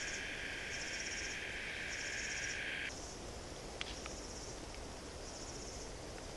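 Insects calling in dry bushland: a steady high buzz that cuts off about three seconds in, over a higher pulsing trill that repeats about once a second throughout.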